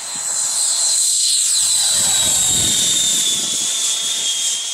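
Twin 72 mm electric ducted fans of a foam RC Boeing 767 model whining at full power for takeoff. The high whine holds steady, loudest in the middle, and its pitch sinks slowly toward the end.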